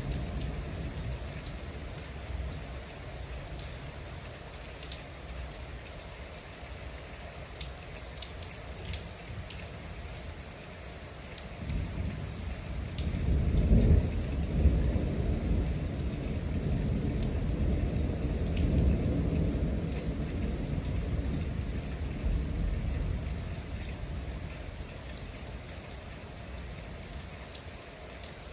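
Heavy rain falling steadily, with drops pattering near the microphone. A long, deep roll of thunder builds about twelve seconds in, is loudest a couple of seconds later, and keeps rumbling for about ten seconds before fading.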